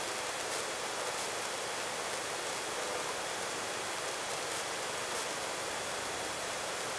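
Steady, even hiss with a faint thin high tone, no engine beat or rotor rhythm standing out: the background of a Robinson R22 helicopter in flight as heard through the cockpit intercom feed between transmissions.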